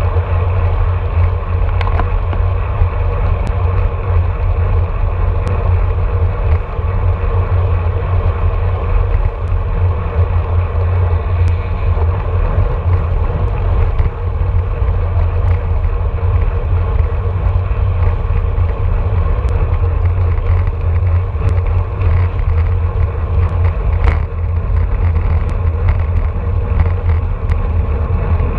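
Heavy, steady wind rumble buffeting a handlebar-mounted action camera's microphone on a road bike at about 25 mph, mixed with tyre and road noise and scattered small clicks.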